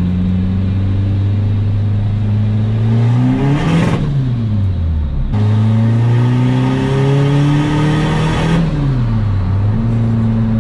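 Volkswagen Polo TDI turbodiesel engine pulling hard under acceleration. The revs climb, drop away about four seconds in and pick up again at a gear change, climb a second time, then fall away near the end as the throttle is lifted.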